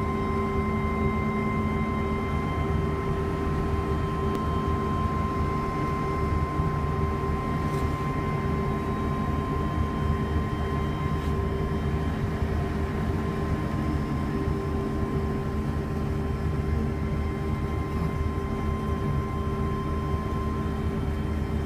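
Steady machinery drone with a constant whine of several tones over a low rumble, from pipeline welding equipment running inside the steel pipe.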